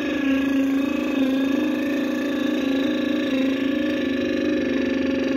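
Synthesized drone: one low note held steadily with its overtones, wavering slightly in pitch.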